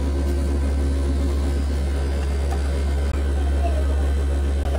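Loud, steady low hum of a self-service soft-drink dispenser's machinery running.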